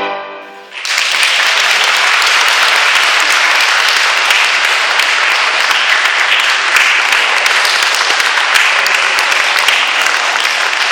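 The last chord of violin and piano dies away, and within a second an audience breaks into steady applause that carries on.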